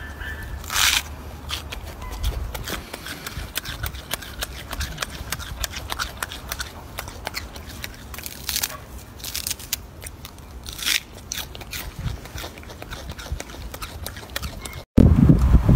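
Golden snub-nosed monkey biting and chewing a crisp leafy vegetable: a run of small crackling clicks, with a few louder crunches. Near the end it cuts off abruptly and a louder low rumble starts.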